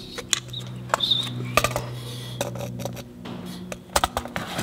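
Light clicks and knocks as a plastic relay panel is handled and fitted against a steel tube chassis, over a low steady hum.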